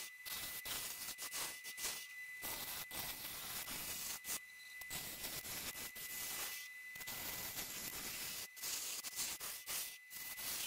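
Bowl gouge cutting the inside of a spinning pink ivory and Combretum schumannii bowl on a wood lathe: a steady hiss of shavings coming off the cut, with brief gaps every couple of seconds. A faint steady high whine runs underneath.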